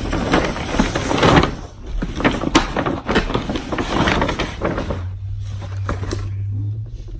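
Rustling and clattering of gift packaging being handled, with many small knocks and crackles, easing off about five seconds in as a low steady hum comes up.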